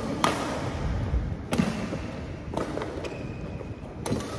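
Badminton rackets striking a shuttlecock during a rally: a series of sharp hits, roughly one a second, each with a short echo.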